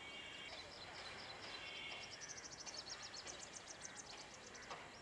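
A bird singing a fast run of short, high chirps, about ten a second, that climb in pitch through the middle and drop back near the end, over faint steady outdoor hiss.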